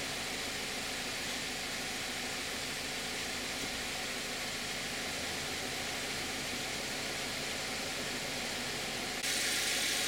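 2021 Subaru Crosstrek's 2.5-litre FB25D flat-four boxer engine running steadily at its regular warm idle, past the fast-idle phase of a cold start. About nine seconds in it turns louder and brighter, heard with the hood open.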